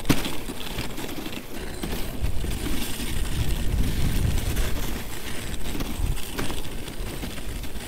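Dog sled running over a hard-packed, crusty snow trail: a steady scraping rush from the runners, heavier and lower for a few seconds in the middle. A single sharp knock right at the start.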